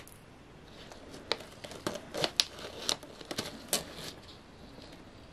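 Clear plastic deli cup and its lid being handled and pressed shut, giving an irregular run of small sharp plastic clicks and crinkles between about one and four seconds in.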